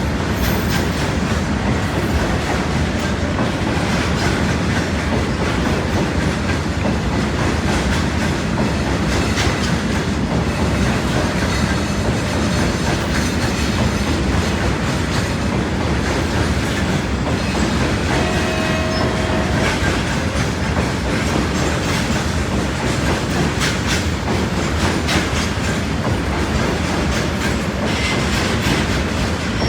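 Indian Railways train running at speed: a steady, loud rumble of wheels on rail with rapid clicking and clattering over the joints. About two-thirds in comes a brief pitched tone, like a short squeal or horn note.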